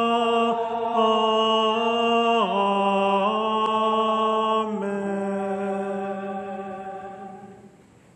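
A choir sings a drawn-out sung Amen in sustained chords that shift several times, and the last chord fades out near the end.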